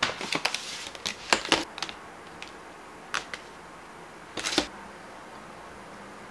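Plastic clamshell berry container being opened and handled: a quick run of crinkly clicks in the first two seconds, a few single clicks after that, and a short crackle about four and a half seconds in.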